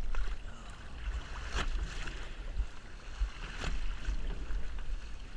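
A hooked fish thrashing at the surface beside the boat hull, water splashing with two sharp splashes about one and a half and three and a half seconds in, over wind rumbling on the microphone.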